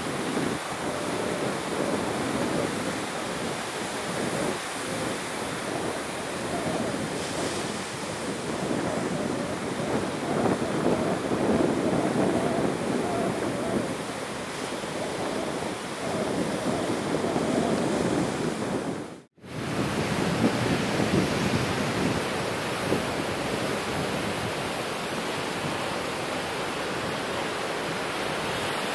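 Sea surf breaking on the shore with wind on the microphone, a continuous rush of noise that swells and eases. It cuts out for a moment about two-thirds of the way through, then carries on.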